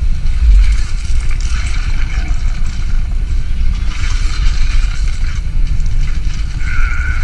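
Action-movie battle sound effects playing back on a smartphone: a dense, continuous rumble of robot combat and debris, with a short high tone near the end.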